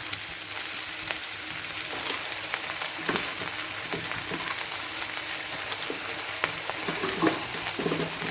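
Chopped vegetables sizzling in hot oil in a pan, with a spatula stirring and now and then knocking and scraping against the pan.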